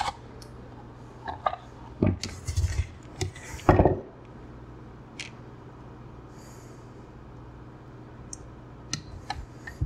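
Hands handling thin wires and small hand tools at a workbench: several sharp clicks and short scrapes in the first four seconds, then a low steady hum with a few small ticks.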